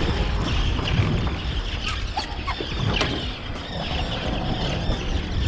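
Wind buffeting the microphone on an open boat, with scattered sharp knocks and a few short squeaky sounds as a bluefish is handled at the gunwale and let back into the water.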